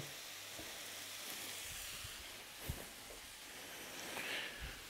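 Chicken breast pieces sizzling in a hot dry frying pan, seared without any added fat: a steady faint hiss. A single light knock a little past halfway.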